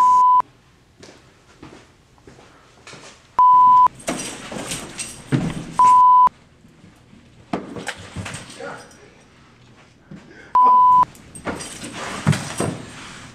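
Four single-pitch censor bleeps, each about half a second long, covering swearing: one at the start, then about three, six and ten and a half seconds in. Quieter noisy stretches lie between them.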